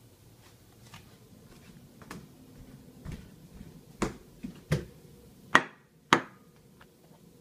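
Clatter of a ceramic plate being lifted from a microwave and set down on a wooden table: a few light knocks, then two sharp knocks about five and a half and six seconds in.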